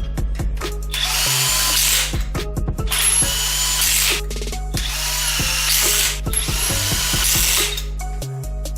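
Impact wrench running lug nuts down onto wheel studs in several short bursts, each about a second long, with pauses between nuts.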